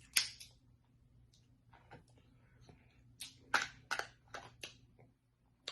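Close-up eating of snow crab legs: a string of sharp cracks and wet smacks as the shells are broken open and the meat eaten, one right at the start and a quick cluster about three to five seconds in.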